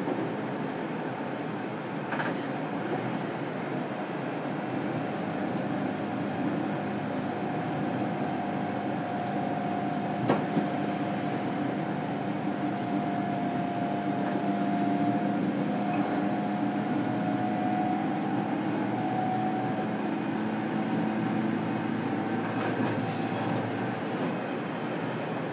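Running sound heard inside a JR Kyushu 817 series electric train's motor car: a steady rumble of wheels on rail with a faint steady whine. A single sharp click comes about ten seconds in.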